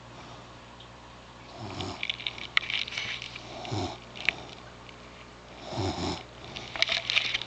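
Snoring, three rasping breaths about two seconds apart, with light crackling clicks between them.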